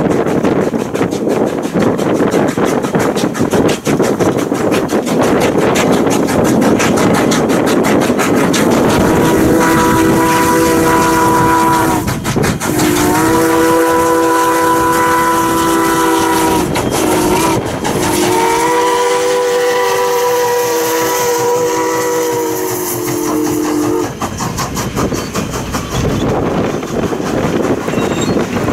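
Steam locomotive working past at speed, then sounding its PRR three-chime whistle in the grade-crossing pattern: two long blasts, a short one and a long one. Afterwards the passenger coaches roll by with a clickety-clack of wheels over the rail joints.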